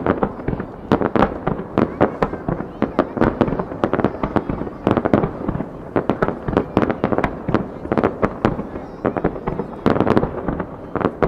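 Aerial firework shells bursting in a rapid, dense barrage, several sharp bangs a second overlapping one another without a break.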